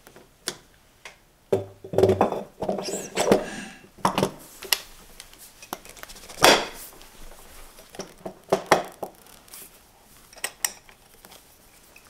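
Steel fittings being seated and tightened by hand on a pressure chamber's end port: a run of metal clicks, knocks and scrapes, some with a short metallic ring. The loudest knock comes about six and a half seconds in.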